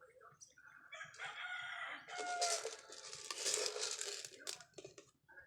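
A rooster crowing once, a long crow of about three seconds that starts about a second in.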